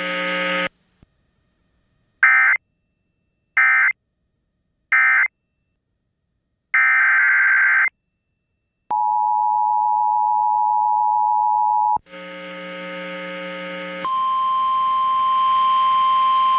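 Emergency Alert System tones: three short screeching digital data bursts, the end-of-message code closing one alert, then a longer data burst heading the next. The two-tone EAS attention signal follows for about three seconds, then after a short buzzing hum the single steady NOAA Weather Radio warning alarm tone starts and keeps sounding.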